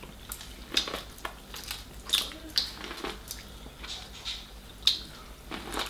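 Close-up eating sounds from a seafood meal: irregular wet smacks, clicks and crackles of chewing and handling shellfish, a couple a second.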